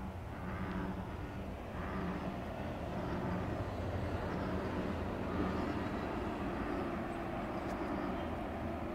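Bullfrogs in a mating chorus: deep, low croaks overlapping into a steady drone.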